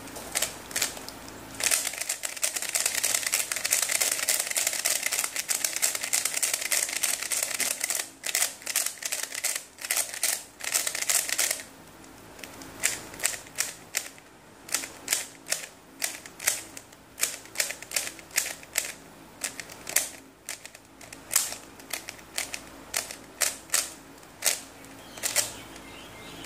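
ShengShou Legend 3x3 speed cube's plastic layers clicking as they are turned by hand. From about two seconds in to about eleven seconds comes a fast, unbroken run of turns; after that come separate turns, two or three clicks a second.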